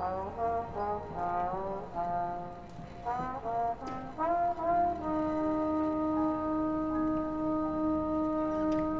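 High school marching band brass, led by trombones, playing a run of short rising phrases. From about five seconds in, the band holds one long chord.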